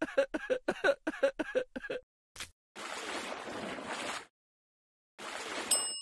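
Added stop-motion sound effects: a quick run of about eight short pulses in the first two seconds, then a steady hiss for over a second. A small brass bell dings near the end, its high ringing held on.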